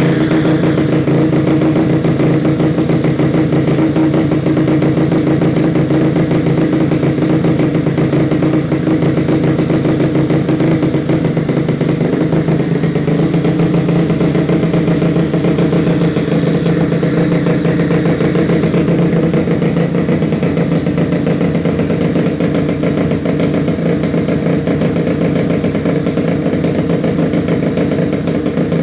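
Suzuki Nex scooter's single-cylinder four-stroke engine, bored up to 130cc, running steadily, its note shifting slightly partway through.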